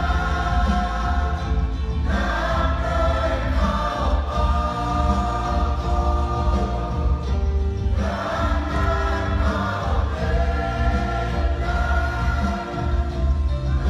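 A church choir singing a hymn together in phrases, new phrases starting about two and eight seconds in, over a steady low bass underneath.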